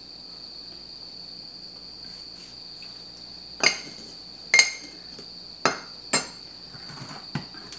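A stainless steel ladle clinking against a small glass container while stirring water into soy sauce: five sharp clinks in the second half, the last one fainter. A steady high-pitched tone runs underneath.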